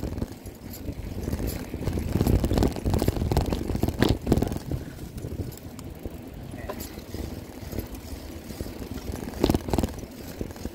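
Low rumble with irregular knocks and clicks: movement and handling noise on a phone microphone carried along a paved path.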